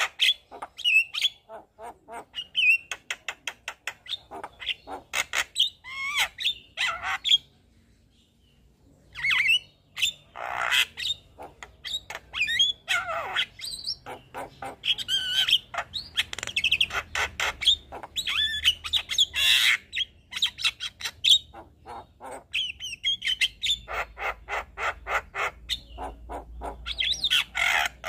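Javan myna singing a long, varied song of rapid clicking rattles, harsh squawks and whistled notes. It falls silent for about a second and a half around the middle, then starts again.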